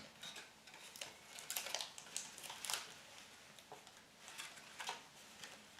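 Faint rustling and light taps of a folded card basket being handled, its tabs being pressed onto the sides with sellotape.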